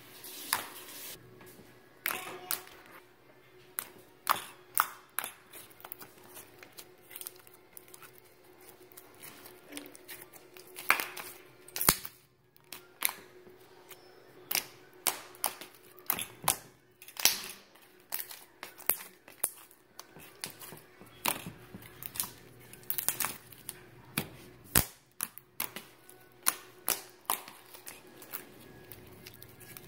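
Glitter slime being pressed, poked and kneaded by fingers, giving off irregular sticky clicks and pops, at times several a second. A faint steady hum runs underneath.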